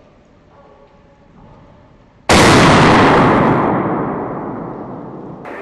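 A single hunting gunshot fired at a running wild boar, about two seconds in; the report echoes and fades away over about three seconds.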